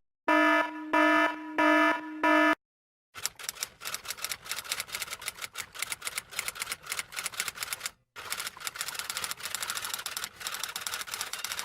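Four electronic buzzer beeps in a row, then after a short gap about eight seconds of fast, irregular clicking like a typewriter being typed on, with a brief pause partway through. These are stock comedy sound effects.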